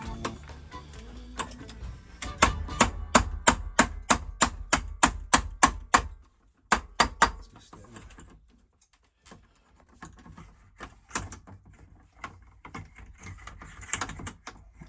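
A run of sharp, evenly spaced knocks, about three or four a second for several seconds, then three more after a short pause and a few fainter clicks. A low music bed sits underneath at first.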